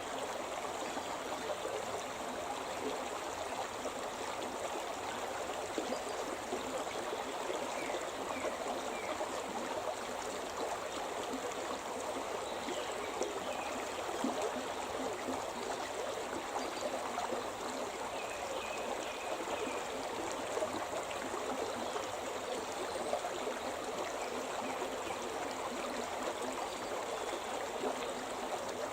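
The Shimna River, a mountain river, flowing with a steady, unbroken rush of water.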